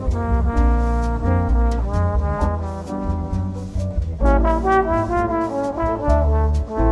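Background instrumental music with sustained melody notes over a steady bass line and a regular beat; the melody moves higher about four seconds in.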